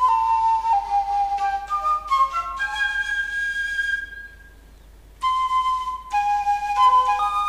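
Sampled quena, the Andean notched flute, played through a homemade sample-based VST instrument as a melody of held notes stepping up and down. There is a pause of about a second near the middle before a new phrase begins.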